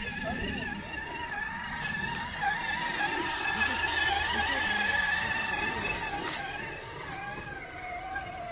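Electric drive motor and gears of a radio-controlled scale crawler whining as it drives along a trail. The steady high whine wavers a little in pitch, is loudest in the middle, and drops lower near the end.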